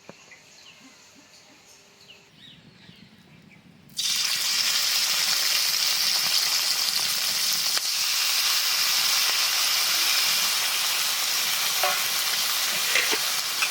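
Prawns frying in hot mustard oil in a kadai: a loud, steady sizzle that starts suddenly about four seconds in, after a few quiet seconds.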